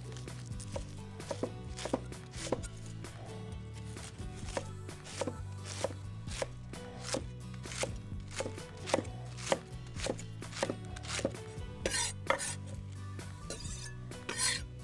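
Chef's knife slicing pointed cabbage on a wooden cutting board, first the white half and then the red, in an even run of chops about two a second.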